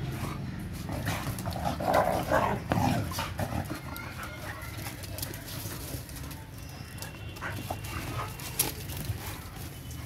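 Two dogs, a Mudhol hound and a Kombai, play-fighting: a quick burst of short barks about two to three seconds in, then scuffing and scattered thuds of paws on sandy ground as one dog runs about.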